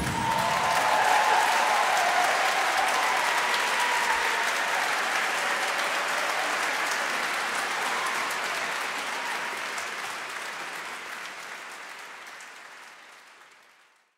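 Large audience applauding, dying away over the last few seconds.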